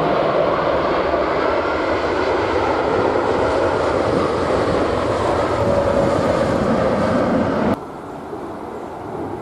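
Four-engined Airbus A340-300 airliner's jet engines running loud during landing, a steady rush with whining tones. Near the end it cuts off abruptly to a much quieter steady background noise.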